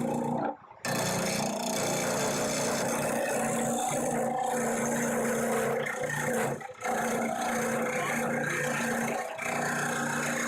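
Wood lathe running with a steady motor hum, while a piece of square steel tubing is held against the spinning wood as a makeshift cutting tool, scraping it roughly round. The sound cuts out briefly three times: just after the start, past the middle and near the end.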